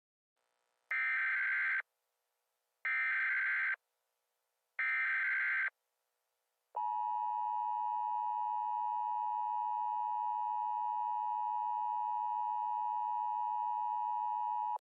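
Emergency Alert System tones: three short bursts of buzzing data tones (the SAME header), each just under a second long and about a second apart, then the steady two-tone EAS attention signal holding for about eight seconds before it cuts off.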